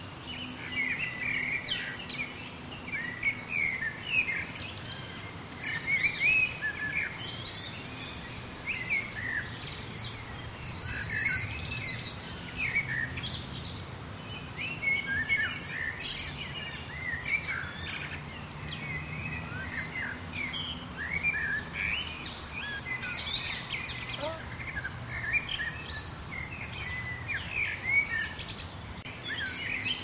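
A chorus of small birds chirping and calling over one another. Twice a brief, rapid, buzzy trill stands out above the chirps. A faint, steady low hum runs underneath.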